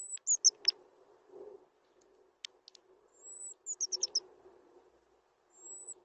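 European robin calling close by: a thin, high whistle followed by a quick run of falling notes, repeated about three seconds later, with a few sharp ticks between and another lone whistle near the end.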